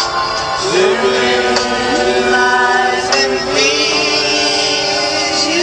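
Music with a sung vocal line, held notes sliding between pitches over an accompaniment.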